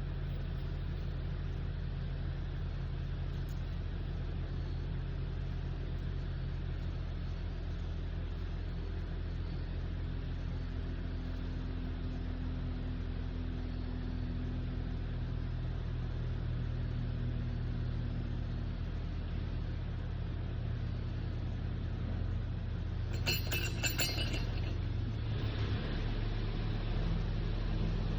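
An engine idling steadily with a low, even hum. A brief clatter comes about 23 seconds in, and the engine picks up and grows louder near the end.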